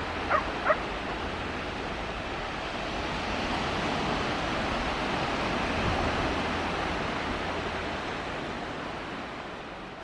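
Strong sea breeze buffeting the microphone over waves washing onto a pebble beach: a steady rushing noise that swells a little around the middle. A dog yelps twice right at the start.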